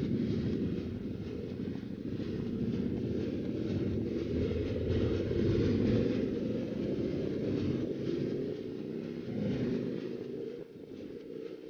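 Vehicle engine running with a low rumble, its pitch drifting up and down. It drops in level a little after ten seconds, then a rising engine note comes in.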